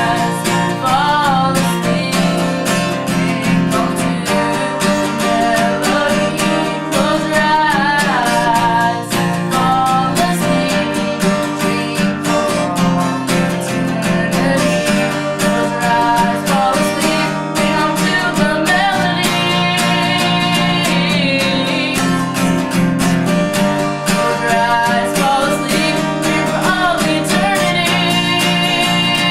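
Solo singing with a strummed acoustic guitar accompaniment, a song performed live.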